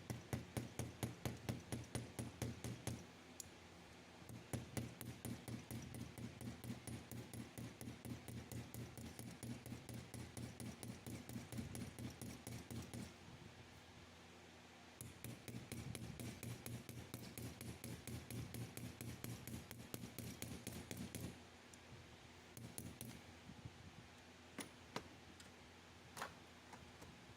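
Small hammer peening a brass pin into a hole in a pocket knife's brass bolster, with rapid light metal strikes at about four a second. The strikes come in three long runs, then only a few scattered taps near the end.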